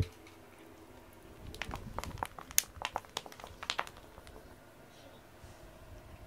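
A wand cat toy with a silicone tail on a wooden stick being dragged and flicked over foam floor mats and blankets: a cluster of light clicks and rustles about one and a half to four seconds in, after a single thump right at the start.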